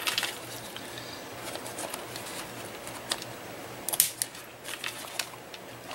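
Handheld corner rounder punch cutting the corners off aluminium-tape-covered paper: light clicks and handling noise, with the sharpest snap of the punch about four seconds in and a couple of smaller clicks after it.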